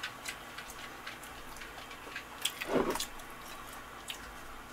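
Faint scattered clicks and light handling noises, with one brief, louder sound a little past the middle that drops in pitch.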